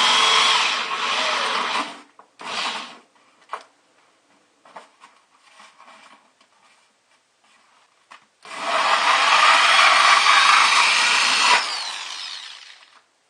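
Power drill with a hole saw cutting a 2 1/8-inch hole through the bucket's liner: a long run, a short burst, a few light knocks from handling, then a second long run that winds down near the end.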